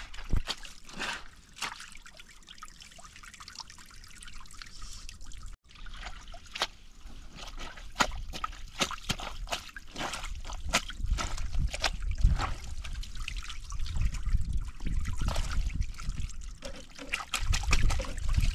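Water trickling and splashing, with many small quick drips and clicks. It cuts out for a moment about five and a half seconds in, and a low rumble builds in the second half.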